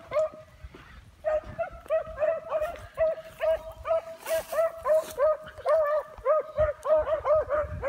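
Beagles baying on a trail: a rapid, steady run of short barks at about four a second, starting after a short pause a second or so in.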